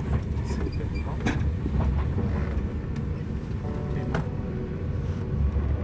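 Steady low rumble of a moving vehicle heard from inside its cabin, with a few scattered clicks and knocks, the sharpest about a second in and about four seconds in.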